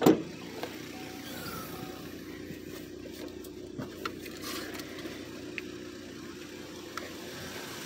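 A single loud thump at the start, then a car idling steadily with a few faint clicks and scuffs.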